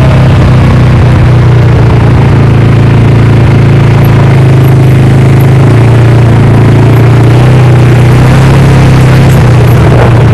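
Quad bike (ATV) engine running steadily as the quad rides along, loud and close.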